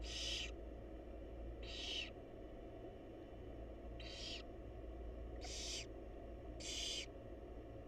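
Barn owl chicks hissing to beg for food: five short rasping hisses, each about half a second, at uneven intervals of one to two seconds, over a steady low hum.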